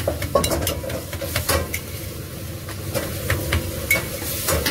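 Close-up eating sounds of a chicken wing being bitten and chewed: irregular wet clicks and smacks over a steady low hum and faint hiss from the food truck's kitchen.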